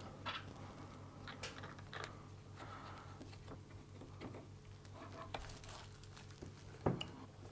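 Faint handling sounds on a workbench: scattered light clicks and taps of metal parts and a soft crinkle of plastic parts bags, over a low steady hum, with one brief louder knock near the end.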